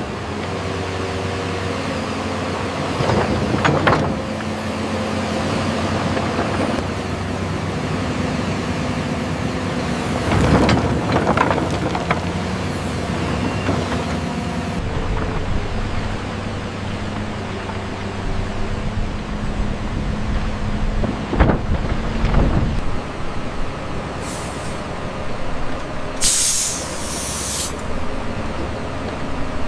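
Excavator's diesel engine running steadily under work, with occasional knocks and clanks from the machine. About three quarters of the way through, a loud sharp hiss lasts about a second and a half.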